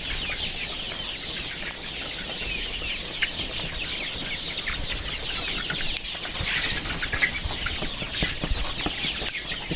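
A flock of young broiler roosters calling together in their house: many short, overlapping chirps and clucks at a steady level.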